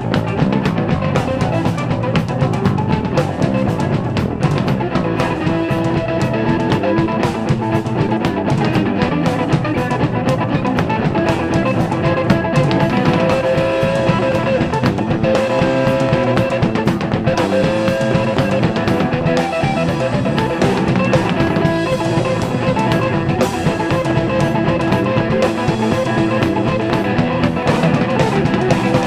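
Live blues trio playing an instrumental passage with no singing: a guitar plays held, bending lead notes over bass and a steady drum kit beat.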